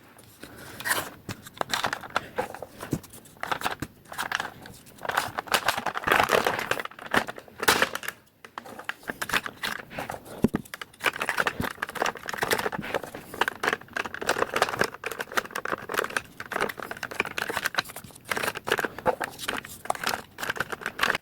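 Sped-up handling noise of foam Nerf darts being loaded into plastic blasters: a rapid, continuous stream of clicks, rustles and rattles.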